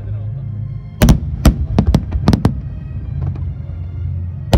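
Aerial fireworks shells bursting in a rapid volley of sharp booms: about six in a second and a half, starting about a second in, and another near the end.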